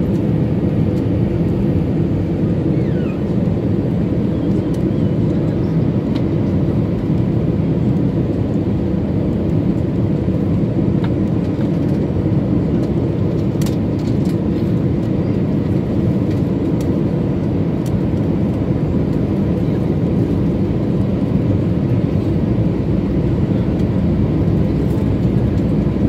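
Jet airliner cabin noise during the descent: the engines and rushing air make a steady, loud, low rumble heard from inside the cabin, with a faint steady hum above it.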